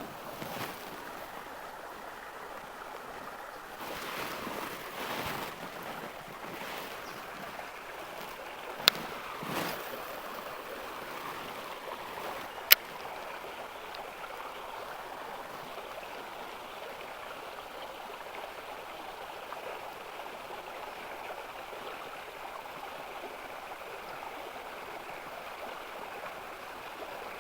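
Steady rushing of flowing river water, with two short sharp clicks, one about nine seconds in and one about thirteen seconds in.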